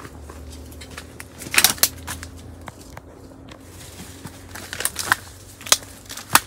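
Footsteps on a dirt path strewn with dry cane stalks and leaves, crunching and snapping in irregular crackles, loudest about one and a half seconds in and again near the end.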